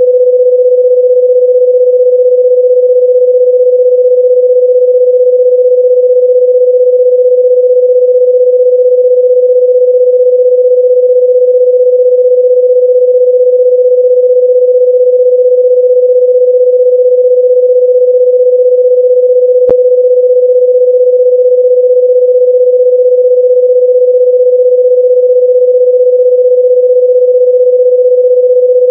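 Loud, steady electronic sine-wave tone at about 500 Hz, a single unchanging pitch with no harmonics. A faint click comes about two-thirds of the way through.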